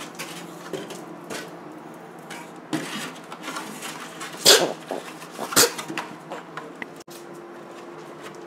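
Chihuahua scuffling with a styrofoam take-out tray on the kitchen floor: scraping and scattered knocks, with two sharp, loud sounds about four and a half and five and a half seconds in, over a steady low hum.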